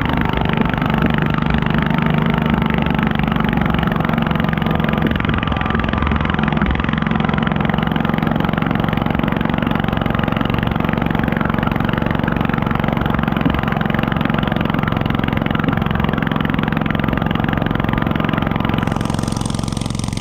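Stock garden tractor's small engine running steadily under load while it drags a weight sled down a dirt pulling track, easing off a little near the end.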